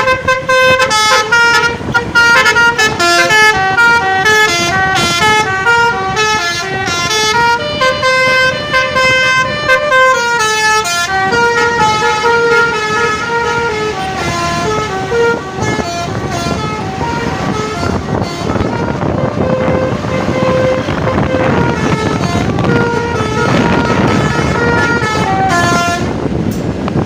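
Bus telolet basuri horn, a multi-tone musical air horn, playing a quick stepping melody. About eleven seconds in, the notes become fewer and longer over a rougher noise.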